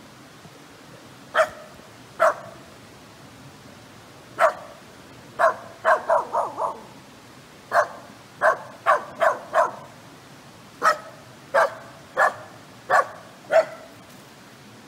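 Kai Ken dog barking: about eighteen short, sharp barks, some spaced apart and some in quick runs of three or four.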